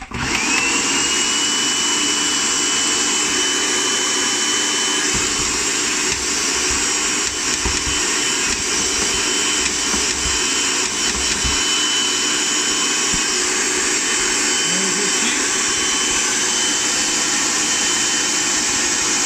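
Food processor motor starting up and grinding a thick falafel mixture. Its whine climbs in the first half second, then holds one steady pitch over a loud rushing churn.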